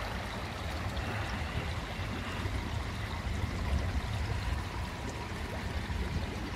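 Steady trickle and rush of running water from an outdoor swimming pool, with a low, uneven rumble underneath.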